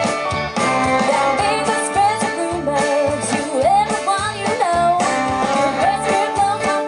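Live country band playing a song: a drum kit keeping a steady beat under guitars and fiddle, with a woman singing lead over the band.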